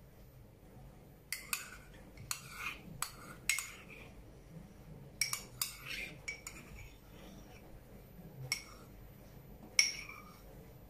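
Metal spoon clinking against the pan while stirring and scooping thick coconut cream: about ten short, light clinks at uneven intervals, the loudest near the end.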